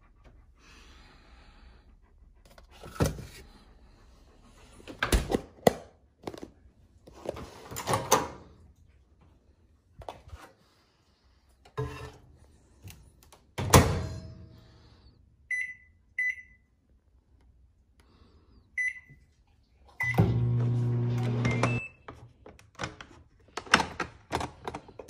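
Kitchen handling sounds: fridge containers and a plastic tub clunking, then a microwave oven's keypad beeping several times. The microwave starts with a brief steady hum, followed by a few more knocks.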